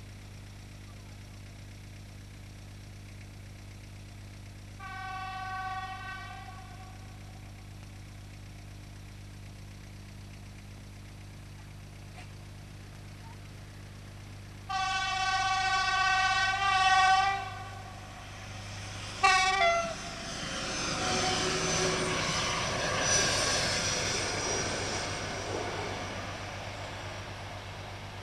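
Passenger train's locomotive horn sounding three times: a blast of about a second and a half, a longer blast about ten seconds later, and a final short blast whose pitch drops as the locomotive passes. The rumble and clatter of the passing train then swell and fade away.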